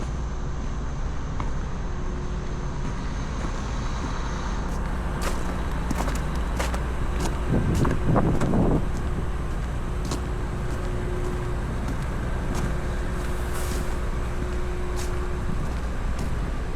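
City street traffic: vehicle engines running steadily, with a louder vehicle sound swelling briefly about halfway through and scattered sharp clicks.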